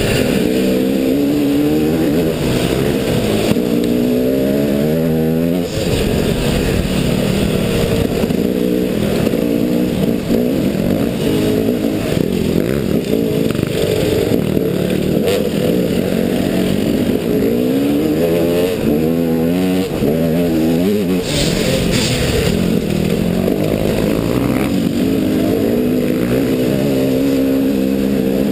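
Dirt bike engine running under the rider, revving up and falling back again and again as it is throttled and shifted along a rough trail. A couple of brief hissing scrapes come about three-quarters of the way through.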